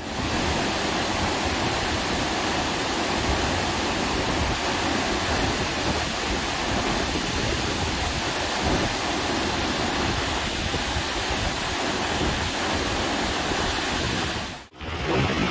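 Steady rush of water from Naruko Dam's 'sudare' release: water spilling over the concrete arch dam's crest and sheeting down its face. It breaks off for a moment near the end.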